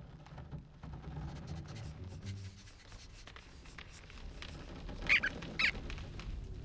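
Cartoon rodents giving two short, high squeaks about half a second apart near the end, over a low background rumble.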